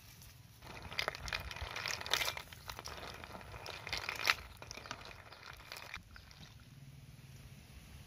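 Crackling, crunching rustle of dry material being handled or trodden on, starting just under a second in and stopping about six seconds in.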